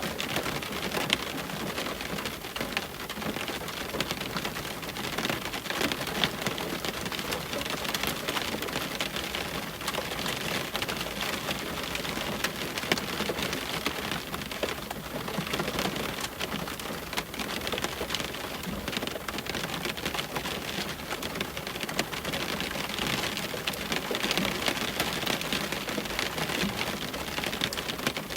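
Rain hitting a window: a steady hiss of many small drop taps on the glass, growing slightly heavier in the last few seconds.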